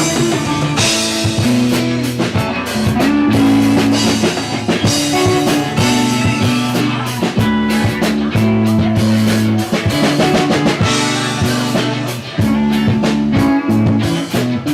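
Live band jamming an improvised instrumental: drum kit and guitar over held low notes that shift every second or two.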